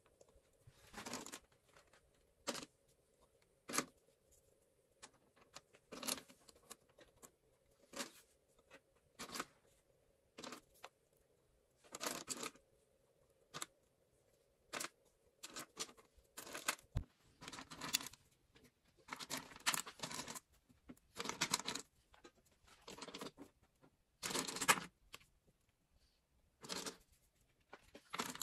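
Irregular short rustling and scraping noises, one every second or two, with a faint steady hum underneath through the first half.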